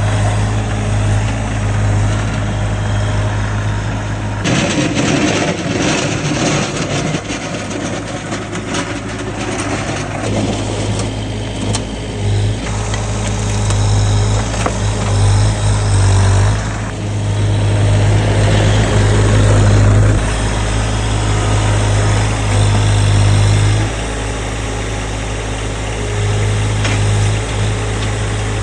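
The diesel engine of a Toro Dingo TX1000 Turbo mini skid steer runs steadily, working up and down in speed as the loader operates. From about four seconds in, a spell of clattering and knocks sits on top of the engine, the grapple bucket handling debris.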